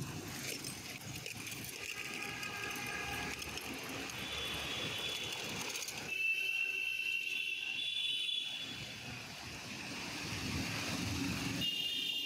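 Street traffic noise on a wet city road, with a high-pitched squeal or ringing tone for a couple of seconds around the middle and shorter ones near the start and end.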